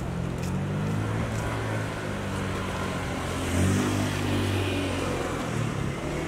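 Street traffic: a motor vehicle's engine running close by, a steady low hum that swells briefly about three and a half seconds in.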